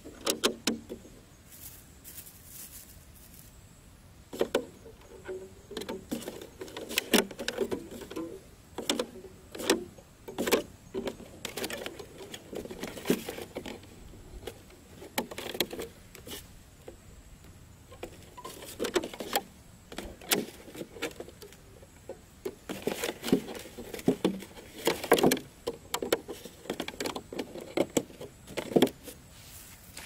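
A thin plastic bottle being handled and fitted, crinkling and clicking irregularly under the fingers.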